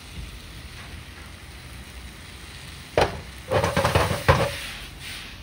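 Yakisoba noodles frying with a faint sizzle in a steel frying pan on a gas burner. About three seconds in the pan is knocked and shaken against the burner grate: one sharp clank, then a quick clattering run of knocks with a brief metallic ring.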